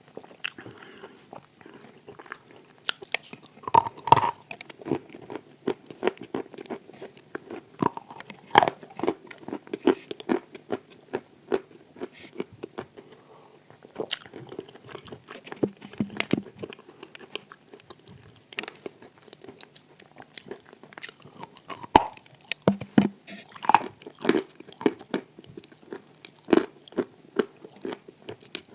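Wet chalk mixed with clay paste being bitten and chewed, with a continuous run of crunching crackles. The loudest crunches come about 4 seconds in, around 8 to 9 seconds, and again around 22 to 24 seconds.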